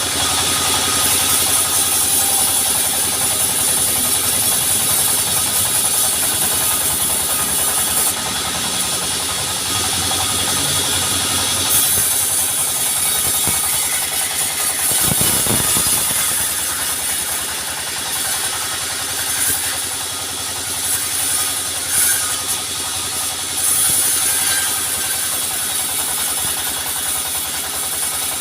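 Sawmill machinery running steadily: an engine-like drone with a strong high hiss that swells and eases in stretches.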